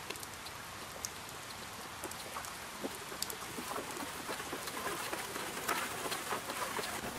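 Water sprinkling onto a planted succulent arrangement: a light, rain-like pattering of many small drops on leaves, moss and soil, growing busier toward the end.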